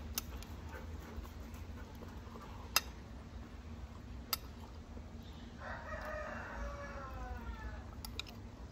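A rooster crowing once, faint, about six seconds in: a single drawn-out call that falls slightly in pitch. A few sharp clinks of a metal spoon against a glass plate come before and after it.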